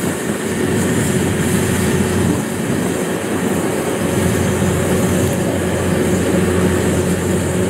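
Kubota DC-93 combine harvester cutting and threshing rice: its diesel engine and threshing gear run steadily with a constant rattle, a low hum and a thin steady whine.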